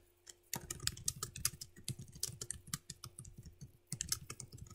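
Typing on a computer keyboard: a fast run of key clicks starting about half a second in, a brief pause near the end, then a few more keystrokes.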